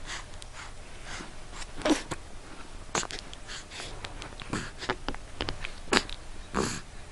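Hiccups: a series of short, sharp hiccup sounds, irregularly spaced a second or more apart, with the strongest about two, three and six seconds in.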